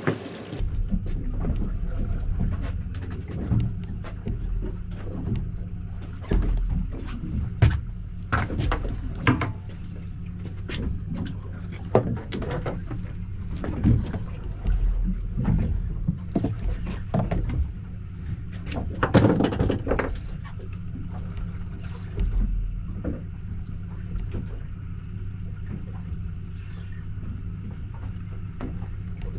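A boat's outboard motor idling steadily, with scattered knocks and clatters over it.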